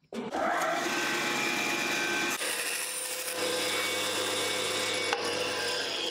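Woodworking bandsaw running and making a 45-degree cross cut through a thin strip of wood: a steady motor hum under the hiss of the blade, starting abruptly.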